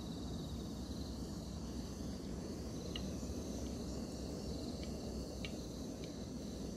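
Crickets trilling over a steady low rush of outdoor background noise, with a few light clicks of chopsticks against bowls as fish is dipped in egg and panko.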